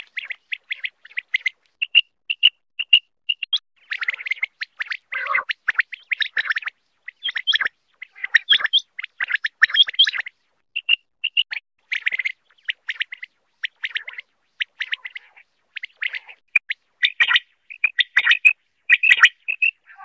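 Quail calling: rapid, irregular clusters of short, high chirping notes, broken by brief silent gaps.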